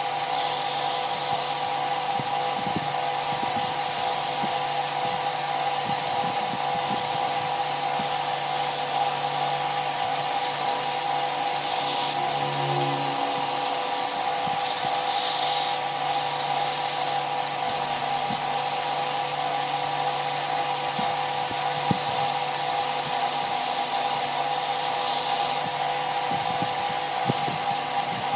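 Wood lathe running at a steady speed, its motor giving a constant hum, with sandpaper rubbing against the spinning wooden workpiece as it is sanded.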